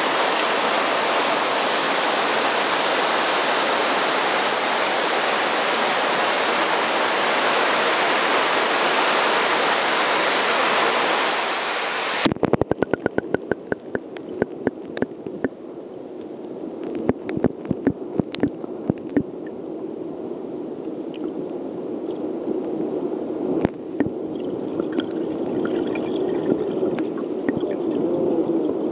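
Shallow river rushing over a gravel bed, a steady loud flow of water. About twelve seconds in, the microphone goes underwater and the sound turns suddenly muffled: a low churning, with a quick run of sharp clicks and knocks and then scattered single clicks.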